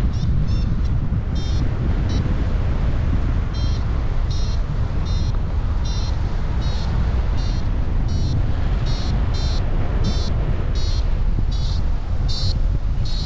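Airflow rushing over the microphone during a paraglider flight. Over it, a variometer gives short, high beeps, irregular at first and then about two a second in the second half, signalling that the glider is climbing in lift.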